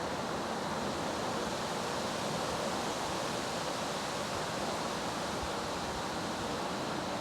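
Steady, even hiss of wind and light rain in the trees.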